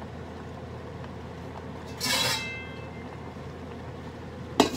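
Stainless steel pot lid handled with a brief metallic, ringing clatter about two seconds in, then set down on the pot with a sharp clank near the end, over a steady background hum.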